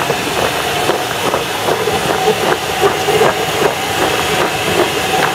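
Steady roaring hiss of a gas stove burner and hot frying oil, with a light irregular clatter of raw, flour-coated potato sticks being tossed in a plastic basin.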